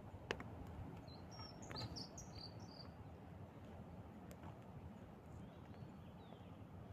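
Faint outdoor ambience: a quick cluster of short, high bird chirps about two seconds in, over a steady low background rumble, with a couple of faint clicks.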